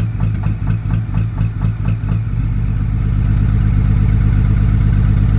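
2004 5.9L diesel engine idling with a sharp, rhythmic knock about four times a second, the bad-injector knock traced to cylinder #5. About two seconds in the knock stops and the engine runs on smoothly and a little louder.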